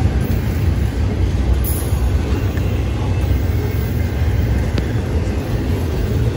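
Double-stack intermodal freight train's loaded well cars rolling past close by: steel wheels on the rails giving a steady low rumble.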